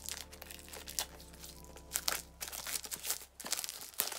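Plastic shrink-wrap being peeled and torn off a book, crinkling and crackling in irregular bursts.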